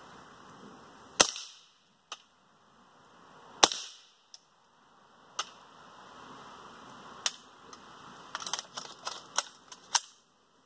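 Suppressed gunshots from a dedicated .22 LR short-barreled rifle with a 4.5-inch barrel and a homemade stainless monocore suppressor, firing bulk-box ammunition that this short barrel keeps subsonic: sharp, fairly quiet cracks spaced about two seconds apart. Near the end comes a quick run of lighter clicks and knocks.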